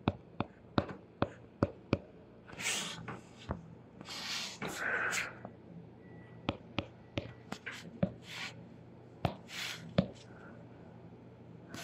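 Stylus tip tapping and making short strokes on a tablet screen while a dashed line is drawn: a string of sharp, irregular clicks, with a few longer soft hisses between them.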